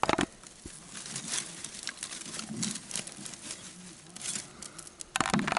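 Small campfire just catching: dryer-lint tinder and dry twigs burning with a light crackle of scattered ticks and pops, and a louder rustle near the end.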